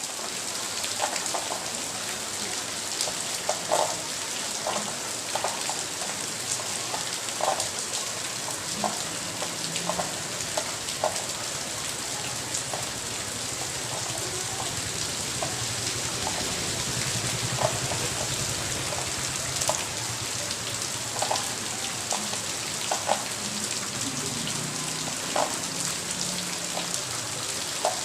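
Steady rain falling, with single heavier drops plinking now and then on top of the even hiss.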